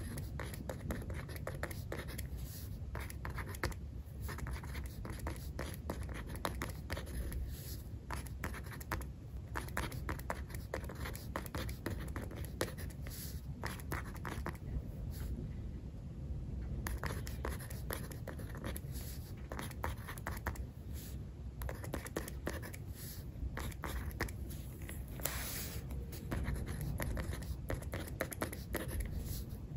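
Mechanical pencil scratching on loose-leaf paper in many quick, short strokes, writing out a column of numbers.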